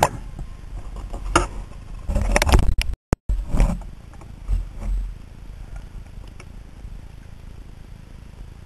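Underwater camera recording: several knocks and rushing bumps of water against the housing in the first five seconds, the sound cutting out briefly about three seconds in, then a steady low underwater rumble.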